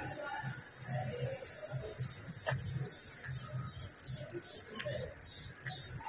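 Indian cicada calling with a loud, high-pitched buzz. The buzz is steady at first, then about two seconds in it breaks into a regular pulsing of two to three pulses a second.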